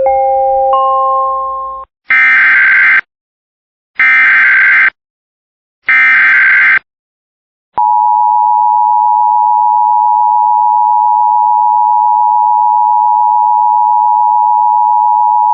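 Emergency Alert System alert: a short run of rising beeps, then three one-second bursts of screeching SAME header data tones about a second apart, followed by the steady two-tone EAS attention signal that starts about eight seconds in.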